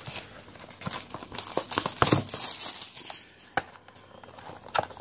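Plastic shrink wrap crinkling and tearing as it is stripped off a trading card box, with dense sharp crackles in the first three seconds and only a few scattered clicks after.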